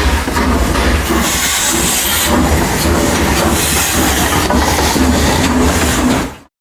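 A train running with a steady low rumble, hiss and clatter, which cuts off suddenly near the end.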